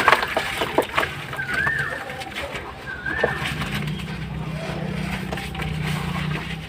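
Birds calling in short rising-and-falling chirps, over a few sharp cracks near the start and a steady low hum from about halfway on.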